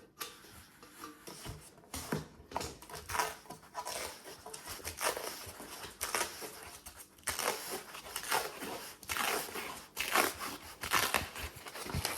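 Scissors cutting into packaging and the wrapping being torn open and handled: a continuous run of irregular rustles, snips and tears.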